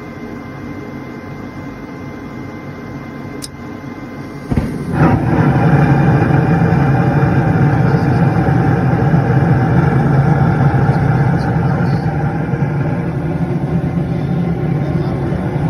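Gas furnace lighting off: the draft inducer motor hums steadily, the gas valve clicks open about three and a half seconds in, and a second later the burners ignite with a thump and keep burning with a loud, steady low rush.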